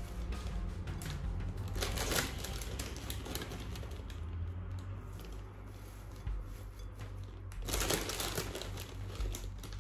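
Plastic salad bag crinkling and rocket leaves rustling as they are shaken out into a glass bowl, in two louder bouts, about two seconds in and near the end.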